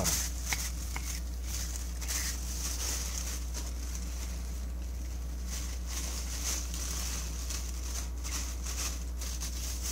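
A cat licking the inside of a thin plastic shopping bag, the plastic giving faint, irregular crinkles and rustles. A steady low hum runs underneath.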